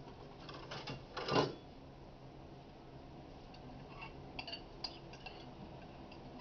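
Kitchenware clattering: a couple of knocks in the first second and a half, the loudest about a second in, then a few light ringing clinks of metal or glass.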